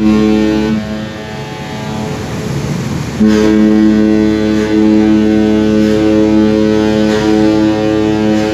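Cruise ship's horn sounding a deep, steady blast: a short blast at the start, then a long loud one from about three seconds in that holds on.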